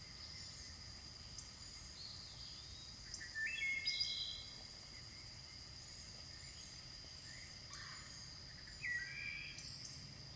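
Outdoor nature ambience: a steady high insect drone, with birds calling in two short bursts of chirps, one a few seconds in and one near the end.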